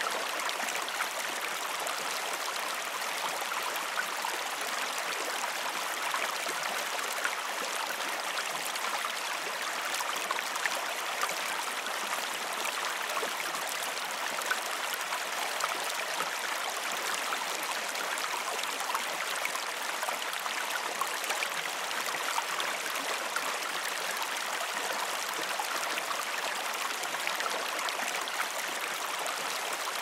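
Shallow river water rushing and splashing steadily over a low rock ledge: an even, mostly high-pitched rush with little deep rumble.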